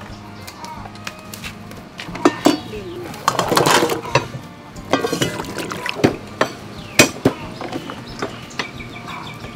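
Kitchen knife knocking on a wooden cutting board while garlic is cut: a scattering of separate sharp knocks. About three seconds in comes a longer metal clatter from a pot and its lid.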